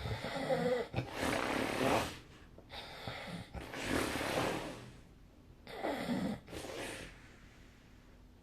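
A person snoring in sleep, a fluttering "buru-buru-buruu" snore repeated over several breaths, the last ending about two-thirds of the way in.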